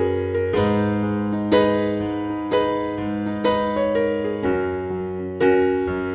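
Background music: an electric piano playing simple chords, a new chord struck about once a second and fading between strikes.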